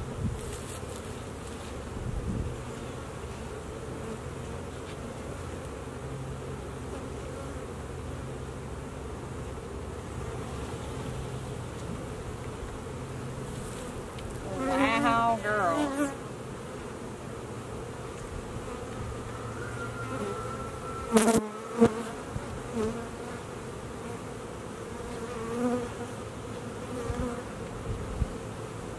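Honey bees of an opened nucleus colony buzzing steadily as their frames are lifted out of the box. A sharp knock comes about two-thirds of the way through.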